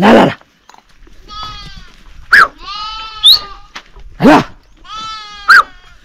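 Sheep and goats of a herded flock bleating repeatedly, one call after another and some overlapping, with several short, loud bleats close by.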